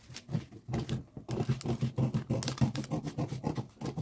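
Orange-handled scissors cutting through pattern paper: rapid repeated snips, several a second, with the paper rustling.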